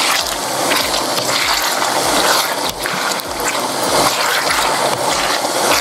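Boneless chicken pieces sizzling as they shallow-fry in a little cooking oil in a frying pan, stirred with a wooden spatula that scrapes and knocks against the pan now and then.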